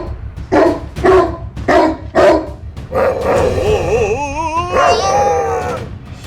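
A dog barking about twice a second, then a wavering, howling whine.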